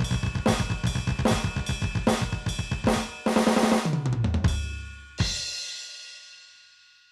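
Drum sounds from an Aroma TDX-16S electronic drum kit's module: a steady kick, snare and hi-hat beat, then a tom fill falling in pitch, ending on one crash cymbal hit that rings out and fades.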